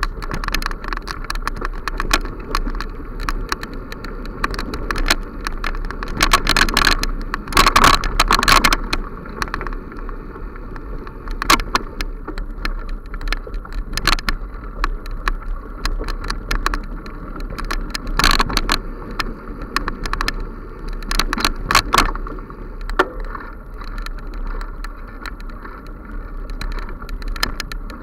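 Bicycle ridden over a bumpy dirt forest trail: steady rolling noise with irregular rattles and knocks as it goes over bumps, thickest about six to nine seconds in.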